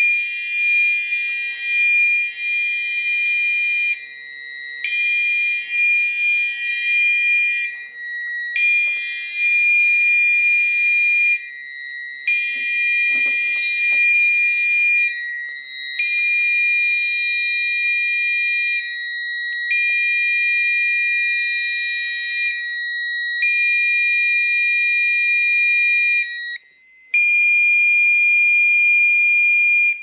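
Fire alarm horns, including a Gentex Commander 4 horn-strobe with a 2400 Hz horn, sounding a high-pitched tone in blasts of about three seconds with short gaps, over a second steady tone. The sound cuts off abruptly at the end as the alarms are silenced at the control panel.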